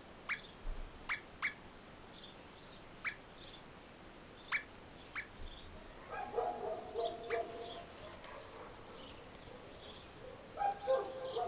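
Eastern rosella giving short, sharp chirps, six spread over the first five seconds. About six seconds in, and again near the end, comes a lower, drawn-out whining sound with a wavering pitch.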